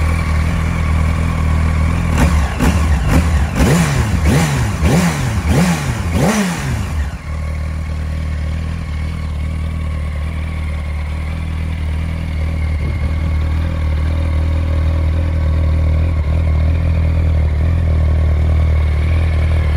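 A 2007 Yamaha YZF-R1's inline-four engine on its stock exhaust, idling steadily, then given a quick run of throttle blips between about two and seven seconds in, each rev rising and falling fast, before settling back to idle.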